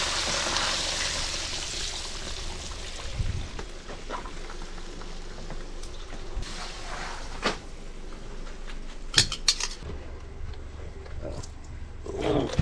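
Fish frying in hot oil in a wok, a sizzling hiss that is loudest at first and dies down as the fish is lifted out. Metal tongs clink against the wok and a foil tray several times, a quick cluster of clinks about nine seconds in.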